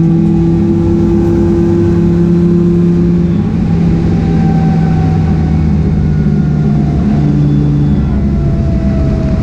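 Mazda RX-8 race car's engine running hard at steady high revs, then easing off about three and a half seconds in and picking up again briefly near eight seconds, under a loud roar.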